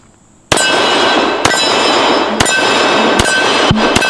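.45 ACP M1911-style pistol firing single shots at a slow, steady pace, about one a second, starting about half a second in. Struck steel targets keep ringing between the shots.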